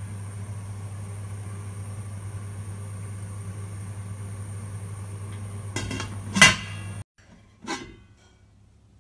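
Stainless steel lid lowered onto a stainless steel pot, scraping briefly and then closing with one sharp metal clank, over a steady low hum. After a sudden cut, one lighter clink of the lid on the pot.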